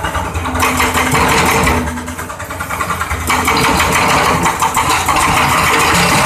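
Excavator-mounted hydraulic breaker hammering concrete in rapid blows, in two runs with a short pause about two seconds in, over the excavator's diesel engine running.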